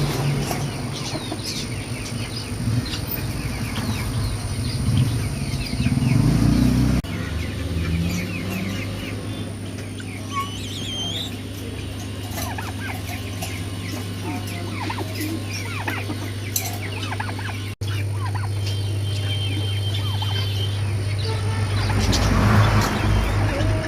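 Birds chirping and calling over a steady low hum, in several clips spliced together, with abrupt changes about 7 s and 18 s in.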